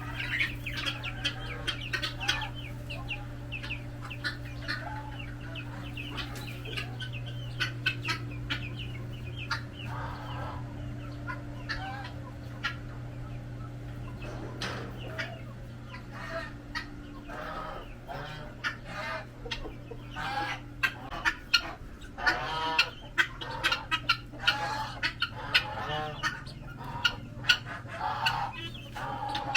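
Caged breeder chickens clucking, with many short calls that grow busier and louder in the second half, over a steady low hum.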